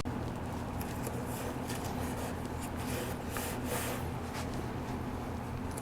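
Faint, scattered rustles and light scrapes of hand work on a wooden piece, over a steady low hum.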